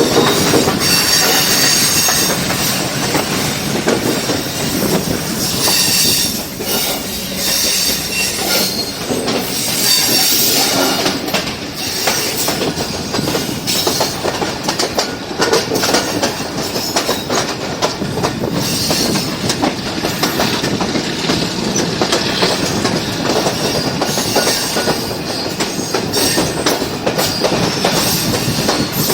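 Passenger express train running at speed, its wheels clattering over the rail joints with a steady rush of track noise. High-pitched wheel squeal comes in a few times during the first half.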